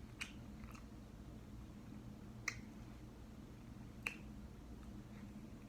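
Quiet eating with three short, sharp, wet mouth clicks, the first right at the start, the next about two seconds later and the last a second and a half after that.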